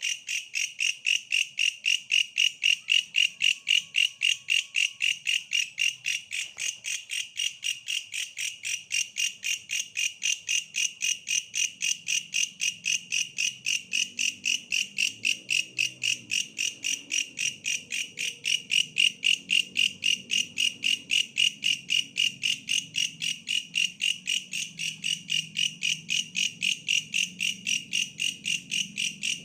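Belalang pohon (tree katydid) singing: a steady, rhythmic train of high chirping pulses at about four a second, running without a break.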